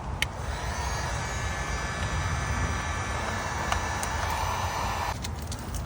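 Heat gun clicking on and running, its fan motor giving a steady whine over a rush of hot air for about five seconds, then cutting off suddenly. The heat is softening the dry tint film so it folds over the turn-signal lens.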